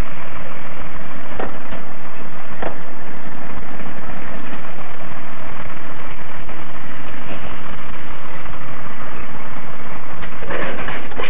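Crawler loader's engine running steadily, with a few brief knocks and a louder burst of noise near the end.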